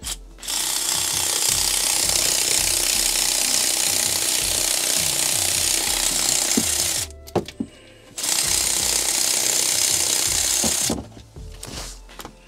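Cordless electric ratchet running in two bursts, one of about six seconds and then one of about three, as it backs out a 14 mm alternator mounting bolt.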